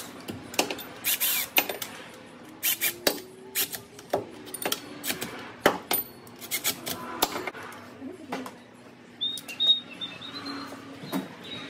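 Irregular metallic clicks and clinks in short runs from hand tools being worked on the bolts of a newly fitted water pump, with a brief high chirp near the end.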